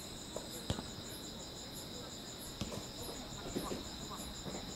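Crickets chirping steadily in fast, even pulses. There is one sharp thump about a second in and another fainter one later.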